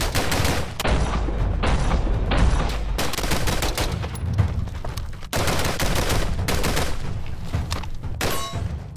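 AR-15 rifle firing a string of shots in quick succession, with the reports running close together.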